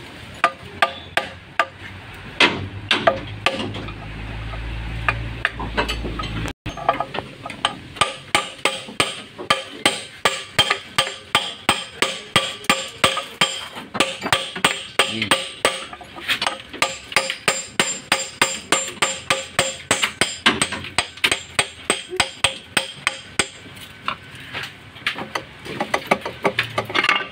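Hammer blows on a steel punch held against a seized brake wheel cylinder on an Isuzu NKR truck's rear brake backing plate, driving the stuck cylinder out: sharp metal-on-metal strikes, a few at first, then a steady run of about three a second that thins out near the end.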